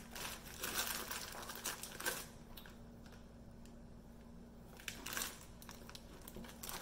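Foil snack wrapper crinkling as it is handled, in two spells with a quieter pause of a couple of seconds between them.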